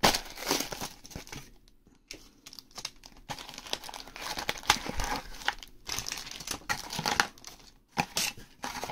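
A cardboard parcel being opened by hand: a blade slitting its packing tape near the start, then cardboard flaps scraping and small plastic zip bags of Lego parts crinkling and rustling as they are handled.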